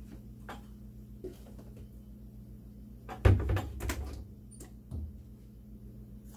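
Dishes and utensils being handled in a stainless-steel kitchen sink: a few light clinks, then a loud burst of knocks and clanks about three seconds in and one more knock near the end. A low steady hum sits under it.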